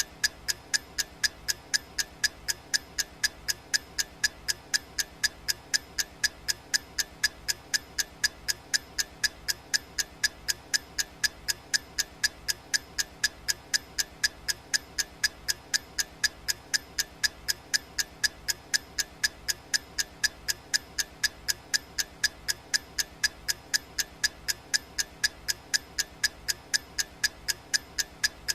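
Clock-ticking sound effect of a countdown timer: sharp, bright ticks, evenly spaced at a little over two a second.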